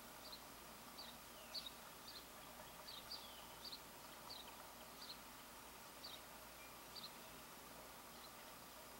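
A small songbird chirping: faint, short, high chirps, one or two a second, some with a quick falling tail, stopping near the end.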